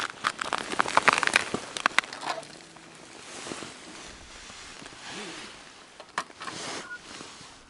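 Footsteps crunching on a thin layer of snow over lake ice, stopping about two seconds in. After that come faint rustling and a few small clicks as a tip-up is handled at the ice hole.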